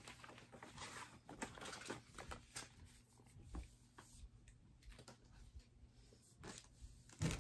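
Faint rustling and small taps from items and packaging being handled in a subscription merchandise crate, with one sharper knock near the end.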